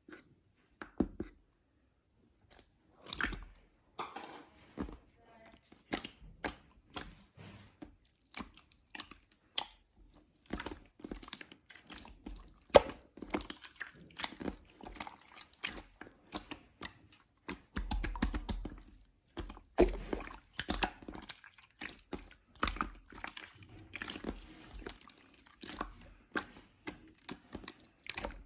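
A long, irregular run of short, crisp clicks and crunches.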